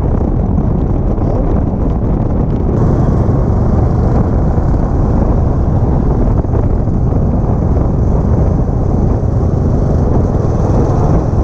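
Steady, loud low rumble and rush of a moving vehicle, mostly road and wind noise with no clear engine note. The sound gets slightly brighter about three seconds in.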